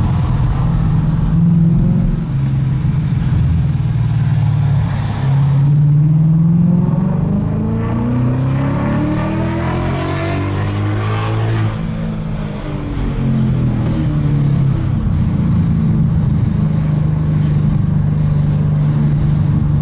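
Tuned 2017 Ford Mustang GT's 5.0-litre Coyote V8 running while driving, a steady high-pitched V8 note. About halfway through the engine pitch climbs and then falls back before it settles again.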